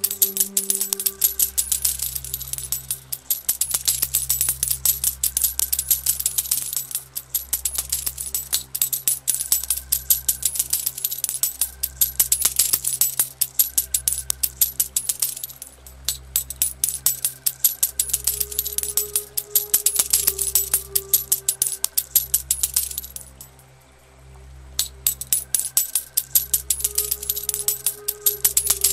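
Slow ambient music with low, sustained bass notes under a dense, constant clinking of falling gold coins. The clinking breaks off for about a second late on, then resumes.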